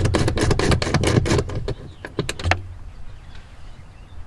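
Hand socket ratchet clicking rapidly, about seven or eight clicks a second, as it backs out an 18 mm seat mounting bolt; it stops about a second and a half in, with a couple of stray clicks after.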